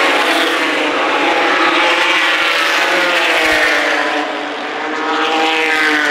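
A pack of ARCA race trucks' V8 engines running at racing speed, several engine notes overlapping, sliding down in pitch through the first few seconds and climbing again near the end.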